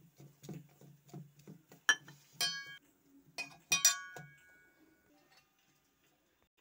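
Soft dull taps, about four a second, then several sharp clinks of stainless steel kitchenware knocking together, the loudest two ringing on briefly.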